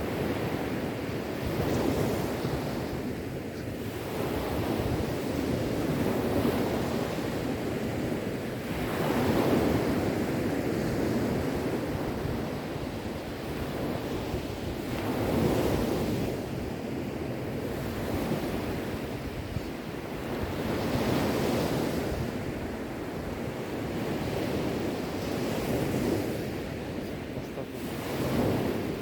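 Sea waves breaking and washing on a shore, a continuous surf noise that swells and eases every few seconds, with some wind.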